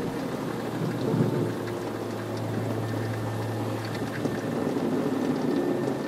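Steady rain falling on a car, heard from inside the cabin, with a low steady hum underneath and a brief swell of rumble about a second in.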